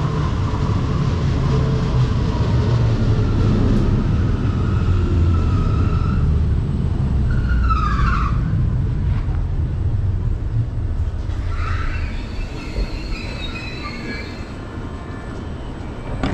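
An SL X60 electric commuter train pulling into an underground station: a loud low rumble of wheels and running gear as the cars pass alongside, with a whine that glides down in pitch about eight seconds in. Fainter high squeals follow as it slows to a stop, and the rumble eases off.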